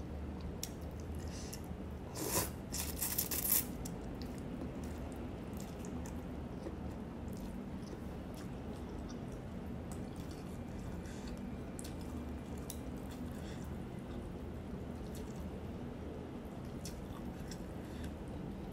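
A person slurping rice vermicelli noodles in a short burst about two to three seconds in, then chewing with small wet mouth clicks over a low steady room hum.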